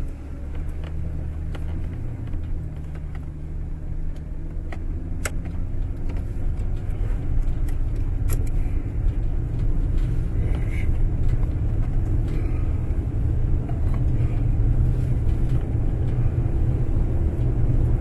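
Road noise heard from inside a moving car's cabin: engine and tyre rumble that grows steadily louder as the vehicle picks up speed, with a couple of sharp clicks in the middle.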